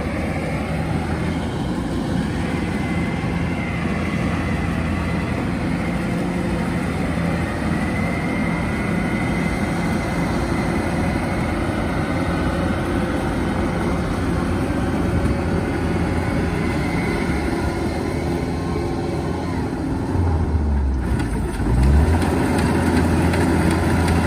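Kubota DC-105X combine harvester's diesel engine running steadily while it cuts lodged rice. Near the end it revs up and gets louder.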